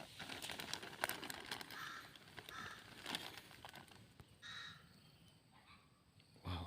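Three short, harsh bird calls, about two seconds in, a little later, and again near four and a half seconds, over faint rustling and clicks.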